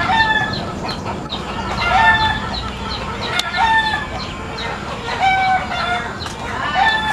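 Chicken calling: five short, level calls with a quick rise at the start of each, repeated about every one and a half to two seconds over a steady low background rumble.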